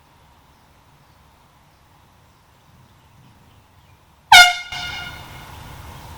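One short, very loud air horn blast a little over four seconds in, lasting about half a second, its pitch sweeping up sharply at the onset.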